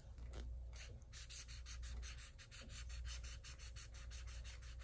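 Felt-tip marker scribbling back and forth on a coloring-book page, a faint run of quick scratchy strokes, several a second, starting about a second in.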